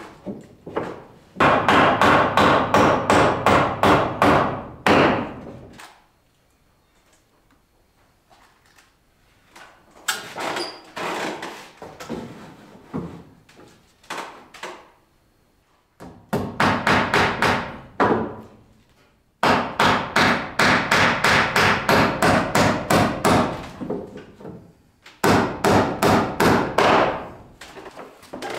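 A hammer driving nails into wooden wall boards. It comes in runs of rapid blows, several a second, each run lasting a few seconds, with pauses between them; the blows in the middle are lighter.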